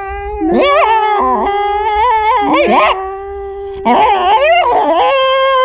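Shiba Inu howling in a 'singing' voice, its pitch sliding up and down in wavering notes, louder and higher from about four seconds in. Under it runs a long, steady held note that stops shortly before the end, likely a person singing along.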